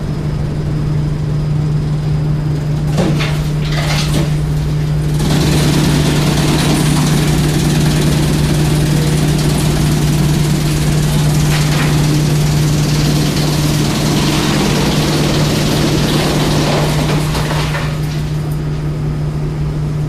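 Electric-motor-driven drum wood chipper running with a steady hum. From about five seconds in until near the end, a louder rushing, grinding noise covers it.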